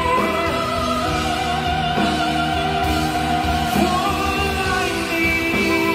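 A man singing long held notes with vibrato into a handheld microphone, over instrumental accompaniment.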